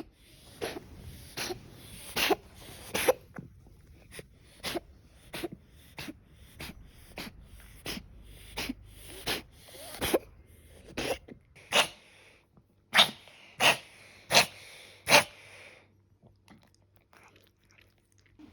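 Domestic cat coughing in a long fit of short, sharp hacks, about one and a half a second, the loudest coming near the end before they stop. The cough was diagnosed by a vet as bronchitis.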